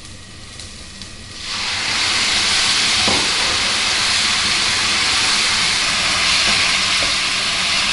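White wine hitting the rice and vegetables in a hot frying pan: a loud, steady steam hiss and sizzle that starts suddenly about a second and a half in, as the wine boils off over the toasting rice.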